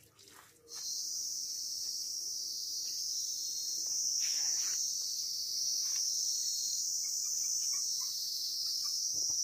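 Steady, high-pitched chorus of insects, starting under a second in and holding unbroken.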